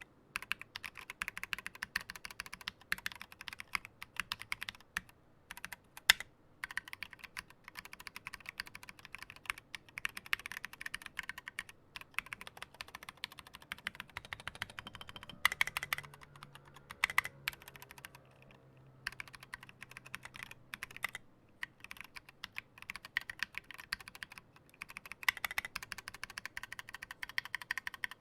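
Typing on a mechanical keyboard with tall SA-profile keycaps over Gateron Milky switches: fast runs of clacking keystrokes, broken by a few short pauses.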